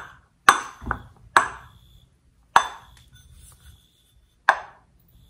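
Sharp metallic clicking, about six irregular clicks, from a Bridgeport mill's front step pulley shifting on its bearings as it is worked by hand. The clicking comes from up-and-down play left by an inner tensioning nut that is not tight enough.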